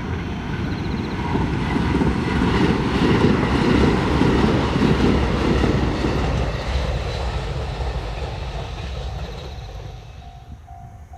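A train passing a level crossing at close range: the rumble and clatter of its wheels build to a peak about three to five seconds in, then fade away. Near the end, as the train fades, the crossing's repeating warning chime can be heard again.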